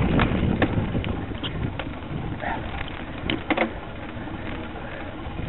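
Wind rumbling on the microphone of a camera riding along a grass cyclocross course, with sharp rattling clicks as the bike goes over bumps, a few of them close together about three and a half seconds in. The rumble eases off in the middle.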